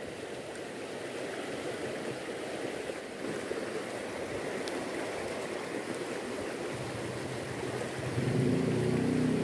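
Fast-flowing river current rushing, an even wash of water noise. About eight seconds in, a louder low drone with a steady pitch joins it.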